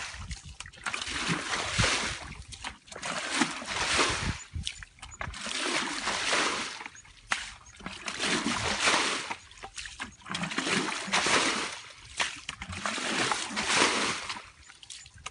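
Muddy water splashing again and again as a yellow plastic container scoops it from a shallow rice-paddy channel and throws it out, bailing the pool: a splash about every two seconds, with dripping and trickling between.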